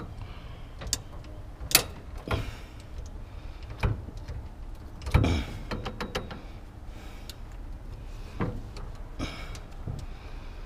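Ratcheting cargo bar being worked by hand: irregular metallic clicks and clunks from its ratchet handle and bar, a few of them much louder, as it is set across a pickup bed to brace a load.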